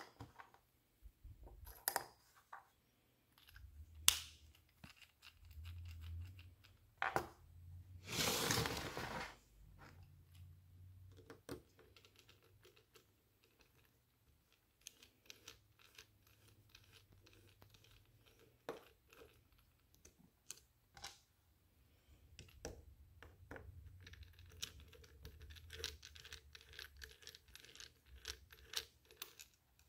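Faint clicks and taps of a precision screwdriver and its loose bit being handled on a wooden workbench, with a brief scraping rustle about eight seconds in. Later, a run of small scratchy clicks as a Husky precision Torx screwdriver turns out the tiny Torx screws of a hard drive's circuit board.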